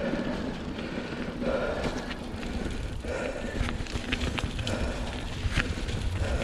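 Mountain bike ridden along a dirt trail: tyres rolling, with the chain and frame rattling and many scattered clicks and knocks from the bumps, and a soft swelling sound about every second and a half.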